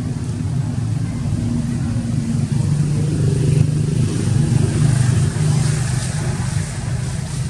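A motor vehicle engine running, a low steady rumble that grows louder around the middle.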